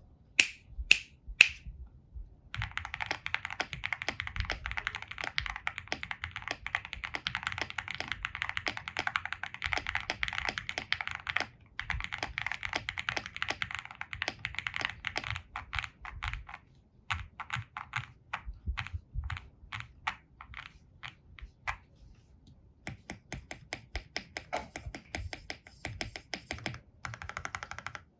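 Akko SPR67 spring-mount mechanical keyboard with Jelly Strawberry v3 switches lubed with Krytox 205g0, typed on in fast runs with short pauses between. A few sharp single keystrokes open it, and midway the typing slows to separate presses.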